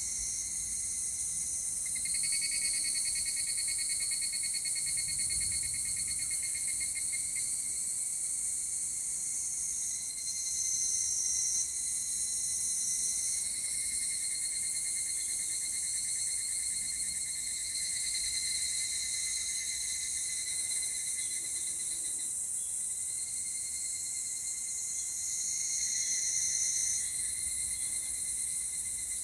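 Chorus of cicadas calling, a dense high-pitched buzz with several overlapping songs. A louder pulsing song swells about two seconds in and lasts several seconds, with further louder songs around a third of the way through and near the end.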